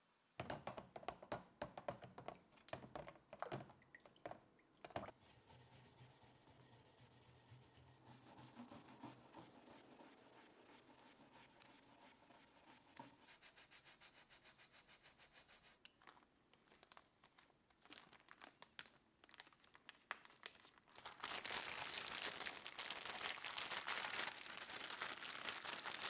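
Gloved hands working a blued steel socket wrench: scattered sharp taps and clicks at first, then a soft, scratchy rubbing that turns into a quick run of small clicks. For the last five seconds, the loudest part, a clear plastic bag crinkles around the wrench.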